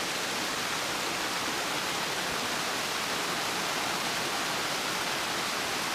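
Small waterfall cascading over stepped rock ledges: a steady, even rush of falling water, with the creek running relatively low.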